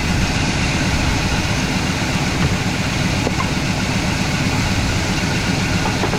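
International Harvester wrecker's V8 engine idling steadily. Its spark is weak on every cylinder, which the owner puts down to a weak ignition coil.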